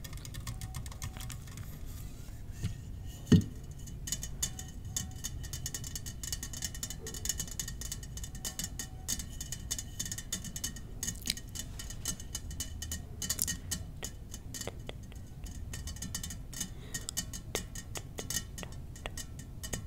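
Fast, irregular tapping on small glass mini-bar bottles, with one sharper, louder knock about three seconds in.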